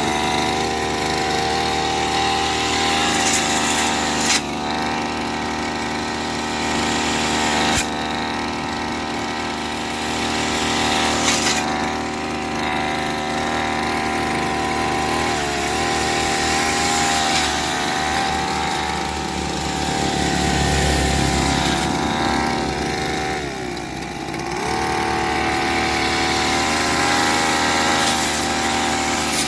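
Small petrol grass-cutting engine running steadily at high speed, its pitch dipping briefly twice, with a few sharp ticks.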